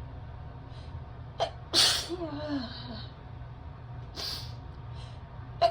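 A person sneezes once: a quick catch of breath, then a loud sneeze that trails off in a falling voiced sound. Near the end comes another sharp catch of breath as the next sneeze starts.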